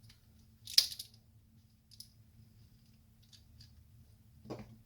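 Plastic LEGO pieces clicking and tapping as they are handled and pressed together: one sharp click about a second in, a few light ticks after it, and a duller knock near the end, over a faint steady hum.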